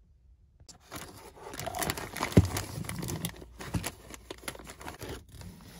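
Crumpling and crinkling of wrapping material as the old batteries from the calculator are bundled up for disposal, a dense crackle of small clicks with one sharp click about two and a half seconds in.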